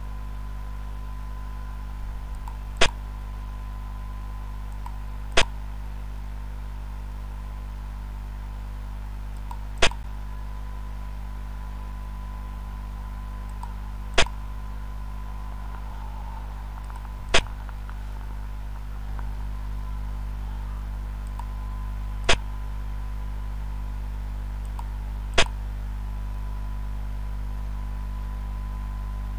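Seven sharp clicks from a xiangqi (Chinese chess) board program, one as each piece is set down on its move, spaced a few seconds apart over a steady low hum.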